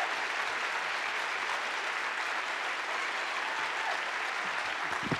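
Audience applauding steadily, the clapping of a theatre crowd at the end of a song.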